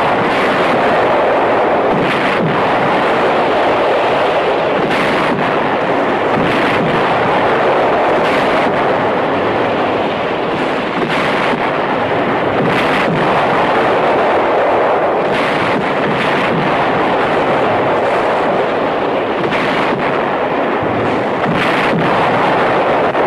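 Artillery barrage: shells exploding one after another, a burst every second or two, over a continuous rumbling din.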